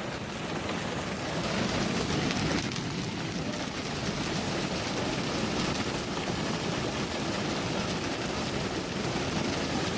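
Hail pelting down: a dense, steady clatter of many hailstones striking the ground and garden plants, getting a little heavier about a second in.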